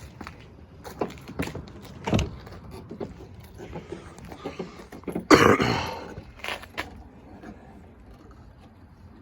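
Scattered metal knocks and clinks of tools working on a car wheel during a tyre change, with one loud cough about five seconds in.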